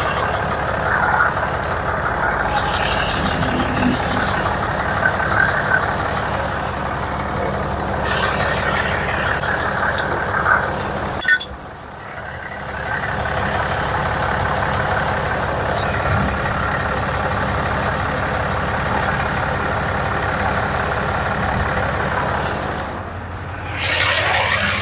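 A machine running steadily and loudly. It cuts off abruptly about halfway through, starts again a second later and eases off briefly near the end.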